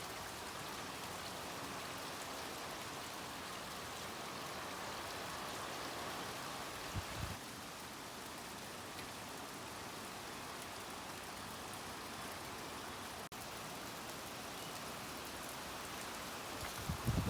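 Steady rain from Hurricane Delta falling, with brief low rumbles about seven seconds in and again near the end.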